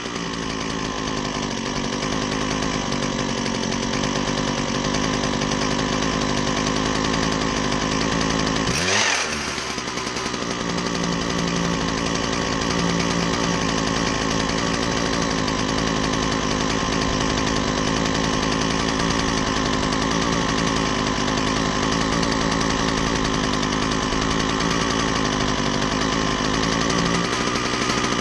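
Husqvarna 122HD60 hedge trimmer's small two-stroke engine running steadily while a screwdriver turns an adjustment screw at its carburetor. About nine seconds in, the engine speed dips sharply and comes straight back up.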